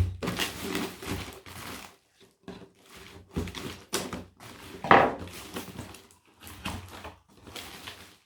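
Cardboard shoebox being opened and its packed contents handled: irregular rustling and knocks, with the sharpest knock about five seconds in.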